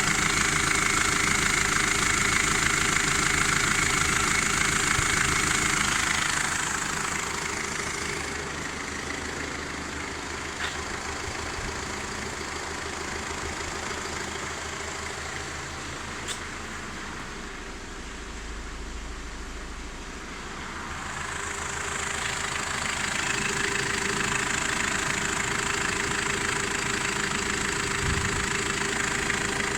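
A freshly rebuilt turbodiesel engine with new pistons and liners idling steadily during its running-in. It grows quieter for about fifteen seconds in the middle, then comes back to full level.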